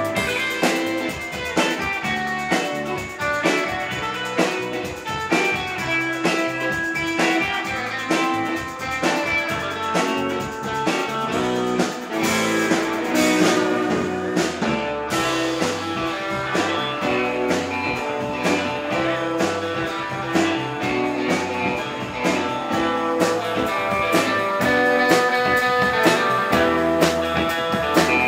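A live rautalanka band playing instrumental twangy guitar music: an electric guitar plays the lead over a drum kit keeping a steady beat.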